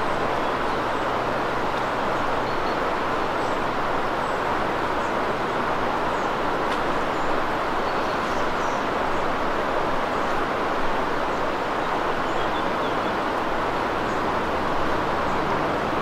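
Steady rush of fast river water running over rapids and riffles.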